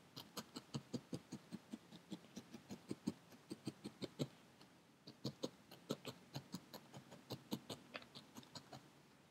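Felting needle stabbing repeatedly through wool roving into a foam pad, tacking the wool in place: quick short pokes about five a second, with a brief pause about halfway through.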